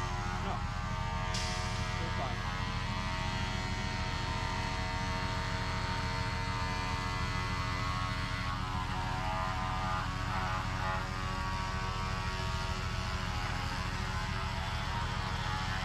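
A motor running steadily at one unchanging speed, a constant dense hum.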